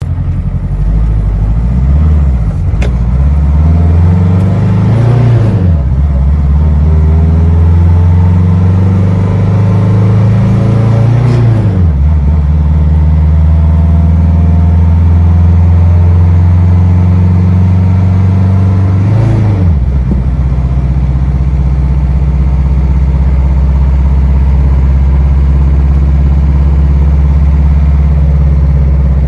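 Old car's engine pulling away and accelerating. Its pitch climbs in each gear and drops sharply at gear changes about 5, 11 and 19 seconds in, then it runs at a steady cruising pitch.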